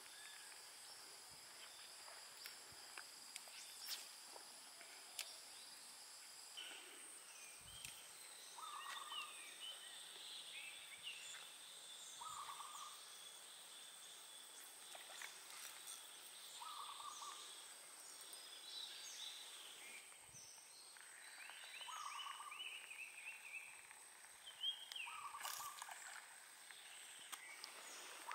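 Faint outdoor wildlife ambience: a steady high insect drone, with a bird repeating a short call about every four seconds and other small chirps.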